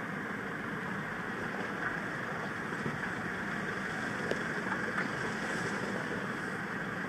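Steady vehicle noise heard from inside a car: an even rumble and hiss without a clear engine note, with a few faint clicks about four to five seconds in.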